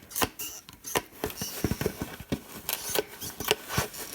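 Snips cutting holes in a plastic coffee can: a quick, irregular series of sharp snipping clicks.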